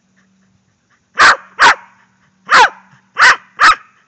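Corgi barking five times, loud and close: two quick barks, a short pause, then three more, aimed at a chicken it is facing.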